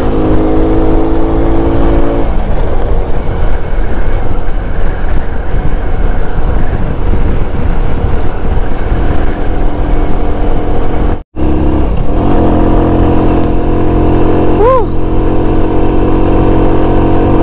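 SYM Bonus 110 underbone motorcycle's small four-stroke single-cylinder engine running steadily at cruising speed, with a heavy rush of wind over the microphone. The sound drops out for an instant about eleven seconds in, then the steady engine hum returns.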